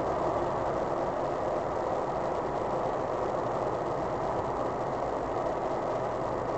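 Steady engine and tyre noise inside a car's cabin while it cruises along a motorway.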